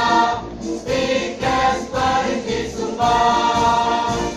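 Women's choir singing the closing lines of an institutional march, ending on a long held chord that cuts off about four seconds in.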